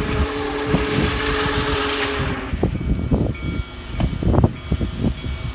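Union Pacific 4014 Big Boy steam locomotive's whistle sounding a long blast for the crossing, which cuts off about two and a half seconds in. Irregular low thumps follow.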